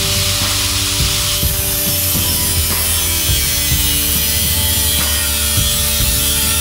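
Angle grinder with a thin cut-off wheel cutting through steel exhaust tubing: a steady motor whine under the harsh, hissing grind of the wheel in the metal.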